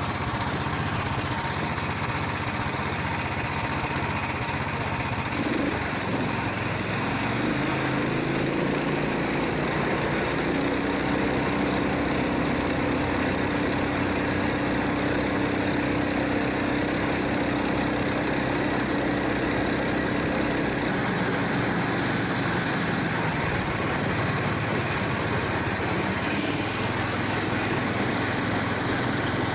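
Small single-cylinder engine of a Promyslovik Uragan motorized snow tug (motodog) running steadily while towing loaded sleds over snow. It speeds up about eight to ten seconds in, holds there, then eases off near the two-thirds mark.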